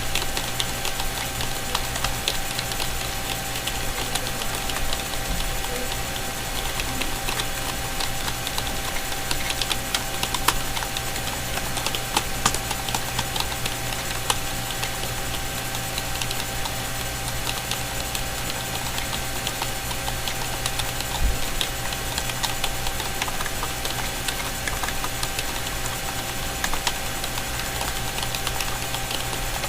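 Fast, continuous typing on a Dell KB212-B rubber-dome keyboard: a dense, irregular patter of key clicks with a few louder strikes, over a steady background hum.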